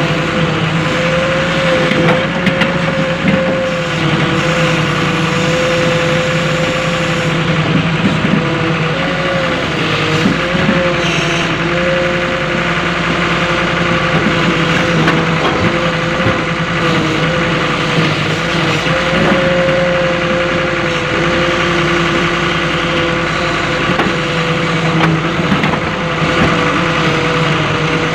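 Volvo EW130 wheeled excavator's diesel engine running steadily while the machine digs and dumps soil. A steady whine sits over the engine sound and dips slightly in pitch now and then.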